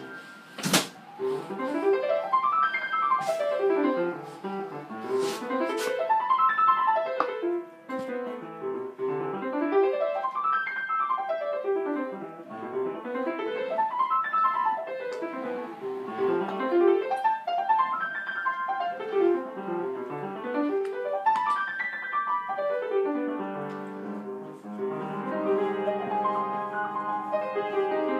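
Solo piano playing rippling arpeggios that sweep up and down about every two seconds, settling into sustained chords near the end.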